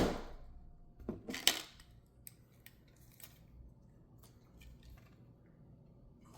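Small metallic clicks and light scraping from handling a titanium folding knife during reassembly, with two sharper clicks about a second in, then faint scattered ticks.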